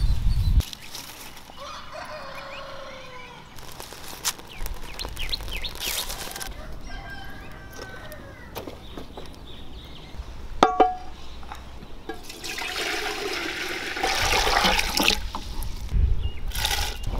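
Village farmyard sounds: a rooster crowing and chickens clucking in the background, with knocks of dry firewood being handled at a clay stove. Near the end, a splash as chopped ridge gourd is tipped into a pot of water.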